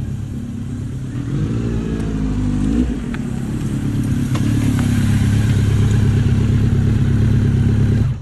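Honda CB1300 Super Bol d'Or SP inline-four running through a Striker full exhaust with a Maverick titanium silencer, its secondary air system cancelled. The revs rise and fall back about three seconds in, then the engine settles into a steady, louder note.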